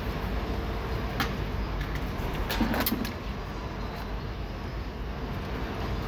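Clicks and a short rattle of the Hyundai Tucson's door latch assembly and its plastic carrier being handled and worked into the door shell: a sharp click about a second in, then a brief clatter a little later, the loudest sound. Under it runs a steady low background rumble.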